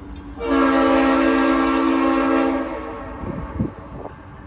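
Norfolk Southern freight locomotive's air horn sounding one long chord of several notes for about two seconds, then fading. It is a really unique horn, almost like a Conrail horn.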